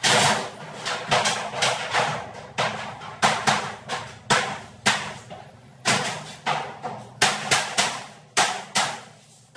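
A run of sharp knocks, well over a dozen at uneven intervals a fraction of a second apart, as a shell piece is knocked into place during furniture installation.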